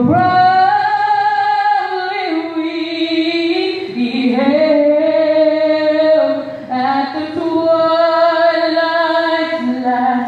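A woman singing the national anthem solo and unaccompanied, in long held notes.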